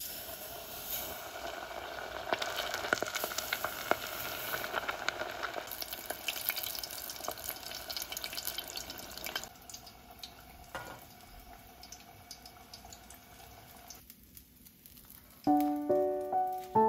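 Starch-coated salmon pieces deep-frying in 170°C oil: a steady sizzle with many small crackling pops, which turns quieter after about nine seconds and fades near the end. Background music with plucked notes starts about a second and a half before the end.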